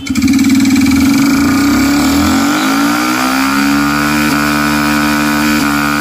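Yamaha FZ V3's single-cylinder engine, fitted with an aftermarket silencer, revved hard in a standing burnout with the rear tyre spinning on the road. The pitch climbs over the first two or three seconds, then holds high and steady, with two brief dips in the second half.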